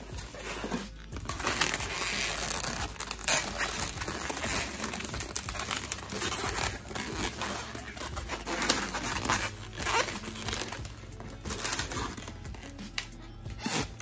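Inflated latex 160 modelling balloons rubbing against each other and against the hands as they are twisted and woven into a chain. It is an irregular run of rubbing with many short, sharp scrapes.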